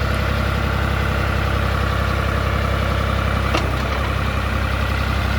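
John Deere 5310 tractor's three-cylinder diesel engine running steadily while driving a backhoe loader's hydraulics. There is a short sharp click about three and a half seconds in.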